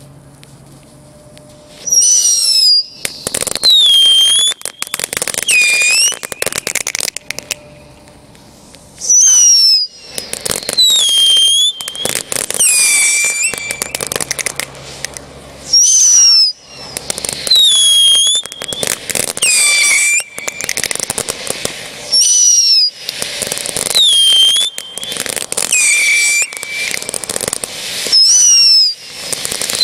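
Jake's Fireworks 'Weeble Wobble Bobble' going off as a run of loud whistles. Each whistle drops in pitch and then bends back up, about one every two seconds, with dense crackling between them. It starts about two seconds in, after a short quiet stretch.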